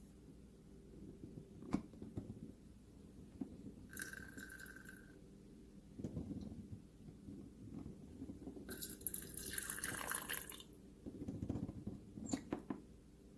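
Electric hot water pot dispensing water into a cup in two short bursts: a brief stream about four seconds in and a louder one lasting about two seconds near the middle, with scattered clicks and knocks between.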